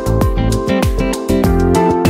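Background music: an upbeat track with plucked acoustic guitar over a steady beat.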